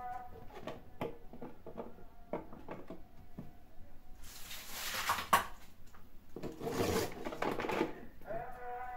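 Cut vegetables such as carrot pieces being handled and packed into a pickling container: a run of small clicks and knocks, then two longer bursts of rustling, hissing noise.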